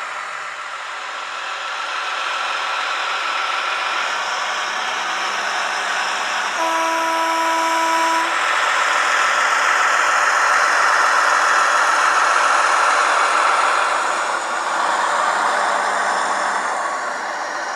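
Kaluga diesel shunting locomotive engine running and growing louder, with one horn blast of nearly two seconds about seven seconds in.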